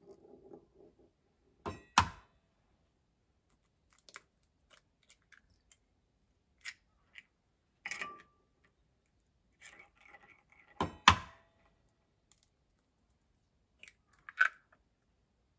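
Eggs being cracked by hand into a glass mixing bowl: sharp shell taps about two seconds in and again about eleven seconds in. Between them come light clicks and clinks of glass and eggshell being handled.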